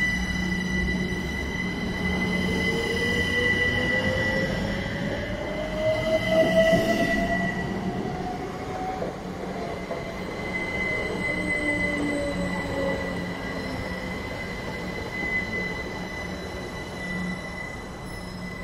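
Great Western Railway diesel multiple units running through the station. A whine climbs steadily in pitch over the first eight or nine seconds and then sinks again, over a steady high squeal and a low hum. It is loudest about six seconds in.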